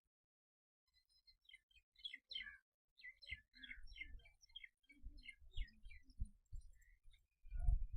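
A small bird chirping in a quick series of short high calls, about three a second, with low dull thumps underneath that are loudest near the end.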